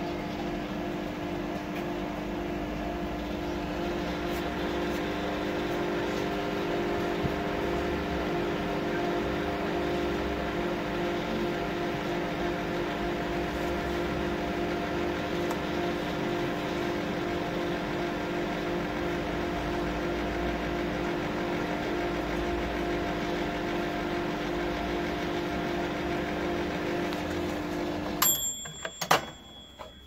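Gorenje microwave oven running steadily with a hum, heating a cup of water, its high-voltage transformer and capacitor freshly replaced. Near the end it shuts off and a ringing bell tone follows, from its mechanical timer.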